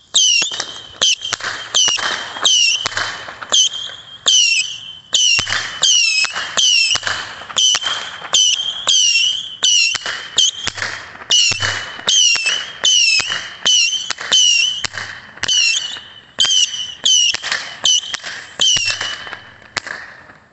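Black Cat 'Missile Base' 25-shot firework firing its whistling missiles in rapid succession, roughly two a second. Each is a sharp crack with a high whistle that drops in pitch. The barrage stops near the end.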